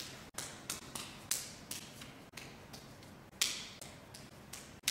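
Hands and forearms slapping together in a Wing Chun partner drill: a string of sharp, irregular slaps, about two or three a second, with the loudest a little past the middle.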